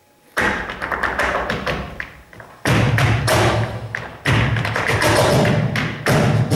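Flamenco percussion: rapid stamping footwork (zapateado) on the stage floor with a cajón, breaking in suddenly about half a second in after a near-silent pause, easing briefly twice and coming back in with a heavier low beat.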